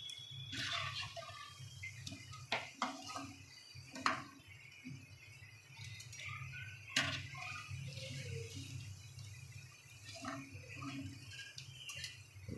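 Vegetable chops frying in hot oil in a kadhai with a faint sizzle, and several sharp clinks of a steel spatula and wire skimmer against the pan as the chops are lifted out.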